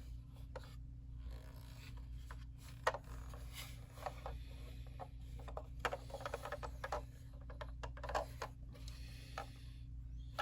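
A Transformers Optimus Prime toy and its trailer being handled: scattered light clicks, taps and soft rubbing of the parts, with one sharper click about three seconds in, over a faint steady hum.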